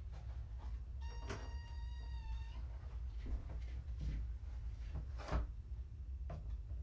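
A kitten meows once, a long, fairly steady high call about a second in that dips at its end. It is followed by a few short knocks and thumps as the box and other things are handled on the floor, the loudest about five seconds in.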